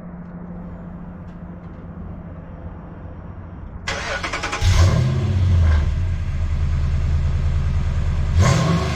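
Exhaust of a 5.7 Hemi V8 Ram 1500 running on long-tube headers with no catalytic converters and the stock muffler. It idles steadily at first, then about four and a half seconds in it gets much louder, a deep exhaust rumble as the engine is revved or the truck pulls away.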